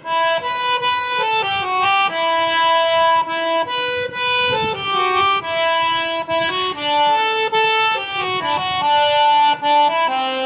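Harmonium playing a slow melody, mostly one reedy held note at a time, stepping to a new pitch every half second to a second without a break.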